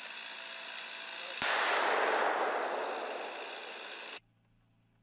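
A steady whine made of several tones, then about a second and a half in a sharp blast beside the unmanned ground vehicle. A loud rushing roar follows, fades over nearly three seconds and cuts off suddenly.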